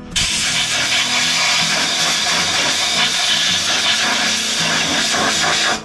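Compressed-air blow gun blasting a loud, steady hiss of air onto a car's coilover strut to clean it. The air starts just after the start and cuts off abruptly near the end.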